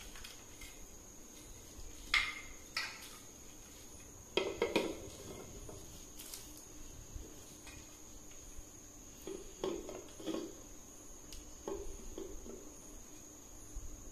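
Hard black plastic TV stand parts being handled and set against each other: scattered clicks and knocks in small clusters, over a steady high thin whine.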